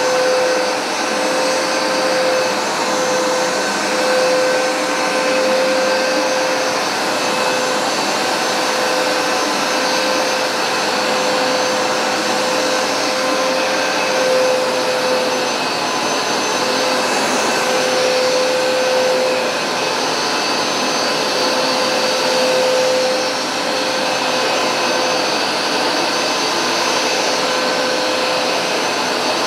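Hoover SmartWash Pet automatic carpet cleaner running continuously as it washes the carpet. Its motor gives a steady whine over rushing suction, swelling and easing slightly every few seconds.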